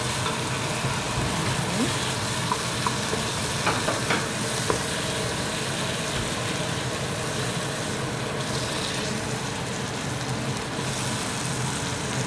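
Okra, garlic and tomato frying in a pot, a steady sizzle while a wooden spoon stirs them, with a few light clicks in the first five seconds.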